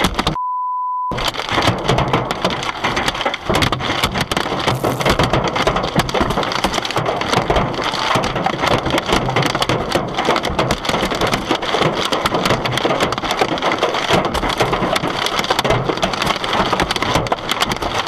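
Hailstones pelting a car, a dense, steady clatter of hard hits. About half a second in, a pure beep tone sounds for under a second while the clatter cuts out.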